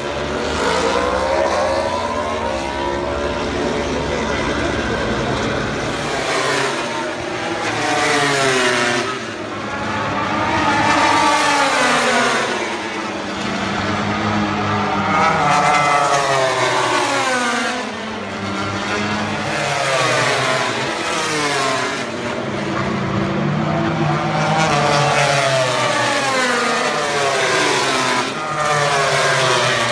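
Racing motorcycles going by on the straight one after another. Each engine's pitch climbs steeply, steps back with the gear changes, then fades as the bike passes, about six times.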